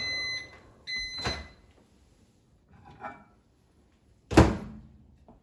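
Over-the-range microwave oven: two short electronic beeps, then its door unlatched and swung open with a loud clunk about four seconds in.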